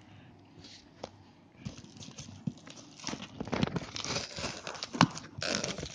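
Cardboard shipping box being cut and torn open with a knife: scraping and tearing of cardboard and packing tape, with knocks as the box is handled. It starts quietly and gets busier from about a second and a half in, with one sharp knock about five seconds in.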